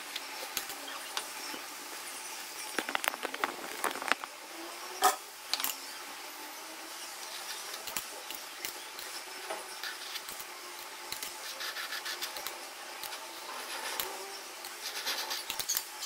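Palette knife scraping and spreading whipped cream over a cake's sides for a crumb coat, with clicks and taps from the plastic cake turntable being turned, and one sharp click about five seconds in.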